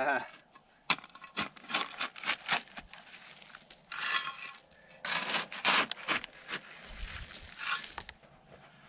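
Steel shovel blade digging into soil and gravel: a run of sharp clicks and knocks in the first few seconds, then three longer scrapes as the blade is driven into the ground.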